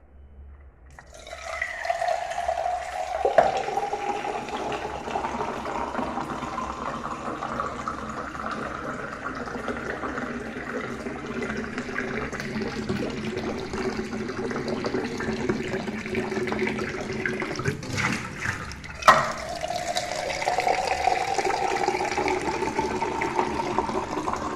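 Water poured into a glass, with a tone in the pour that rises slowly as the glass fills. A sharp clink about three-quarters of the way through, then the pour starts over lower and rises again.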